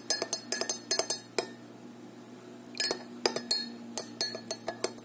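Metal teaspoon clinking against the inside of a ceramic mug while stirring cocoa: quick clinks about five a second, stopping for about a second and a half midway, then starting again.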